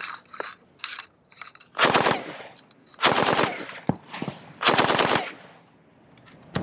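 An original Vietnam-pattern M60 machine gun in 7.62 NATO firing three short full-auto bursts from the hip, each about half a second long and a second or so apart.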